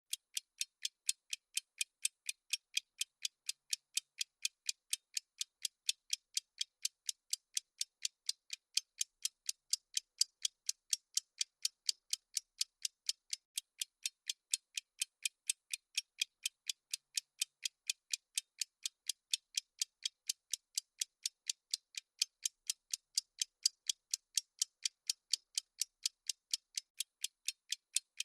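Clock-ticking sound effect of a countdown timer: thin, high, even ticks, about three a second, keeping a steady rhythm.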